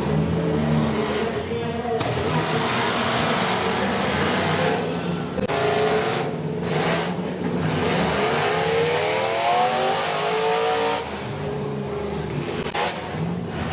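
School bus engines running and revving under load in a demolition derby, with one engine rising in pitch as it revs up near the middle.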